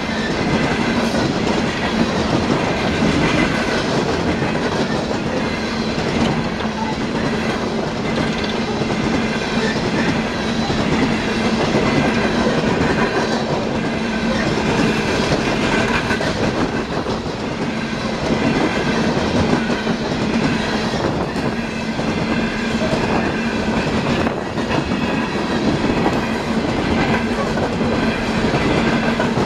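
Empty coal hopper cars of a CSX freight train rolling past, wheels clacking over the rail joints over a steady hum.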